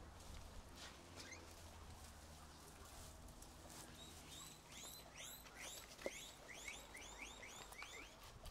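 Guinea pigs wheeking: a faint run of short squeaks, each rising then falling in pitch, starting about four seconds in and coming several a second. Before that there is only a faint low hum.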